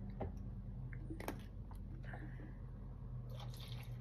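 A few light clicks and knocks from handling the bleach cup and the washing machine's dispenser, over a steady low hum.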